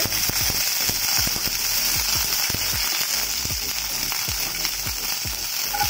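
Curry leaves and cumin seeds sizzling in hot oil in a kadhai, a tempering (tadka): a steady hiss with frequent small pops and spits.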